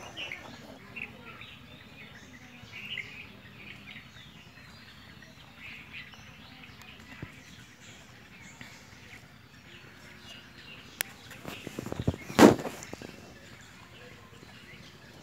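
Faint birds chirping in the background over low hiss, with a brief loud clatter of knocks about three-quarters of the way through.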